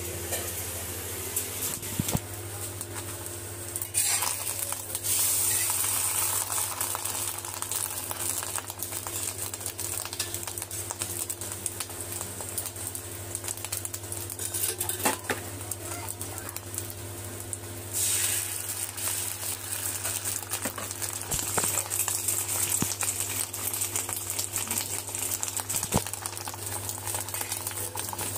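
Egg frying in oil on a flat iron tawa: steady sizzling and crackling from about four seconds in, with clinks and scrapes as a metal blade lifts and turns the egg. A steady low hum runs underneath.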